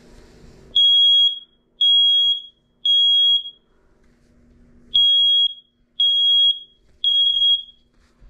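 Smoke alarm, opened with its cover off, set off by aerosol test smoke sprayed into it. Its horn sounds the standard three-beep evacuation pattern: two rounds of three loud, high-pitched beeps, each about half a second long, with a pause between the rounds.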